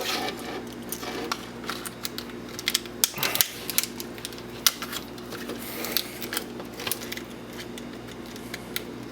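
Plastic and metal parts of a windshield wiper switch clicking and rattling as it is handled and its wires are pulled off: a run of irregular light clicks and scrapes over a faint steady hum.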